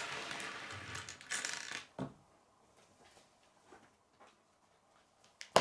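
Plastic K'nex rods and connectors rattling and clattering as a hand rummages through a loose pile of pieces, ending with a click about two seconds in. Near the end comes one sharp plastic click.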